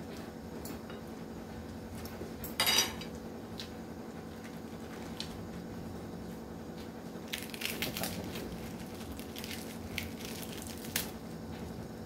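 Metal spoon and fork clinking and scraping on a plate, with one louder clatter about two and a half seconds in. Later come a cluster of crisp handling noises as fresh cabbage leaves are torn off and a few single clicks, over a faint steady hum.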